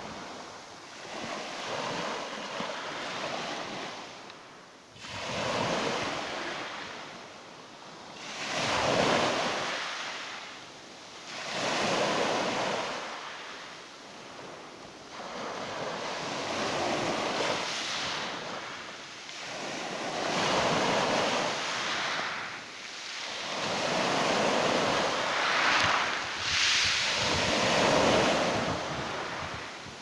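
Small sea waves breaking and washing up a pebble beach, each wash swelling and fading every three to four seconds.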